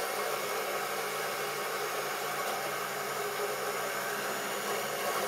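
Electric motor of an OO-scale Class 35 Hymek model locomotive running at full power while the loco is held against the buffer stop, giving a steady, even hum with hiss.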